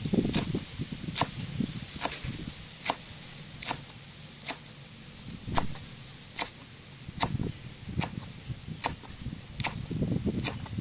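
Knife slicing through rolled green leaves and striking a wooden chopping board, a sharp knock roughly once a second.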